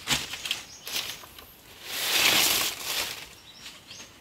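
Rustling and crunching of dry plant material being handled, swelling about two seconds in and fading near the end, after a sharp knock at the start.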